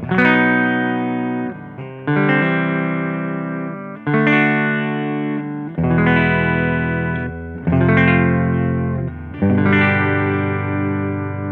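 Electric guitar played through the repaired Fender Blues Deluxe tube combo amp: chords struck and left to ring and fade, a new one about every two seconds.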